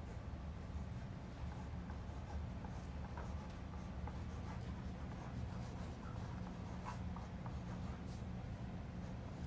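A pen and a pencil scratching on paper as people write and sketch, in faint scattered strokes over a steady low hum.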